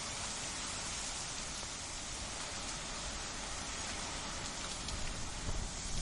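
Winter wind blowing as a steady broad hiss, with a few stronger gusts rumbling low near the end.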